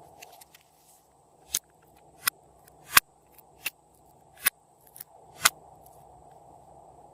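Glossy slime being worked by hand, giving a series of sharp clicking pops, about one every three-quarters of a second, that stop shortly after the middle.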